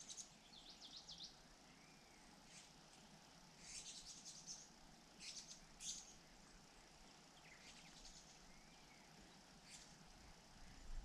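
Faint, high-pitched bird chirps in short scattered clusters, about half a dozen over the stretch, over a quiet outdoor hiss.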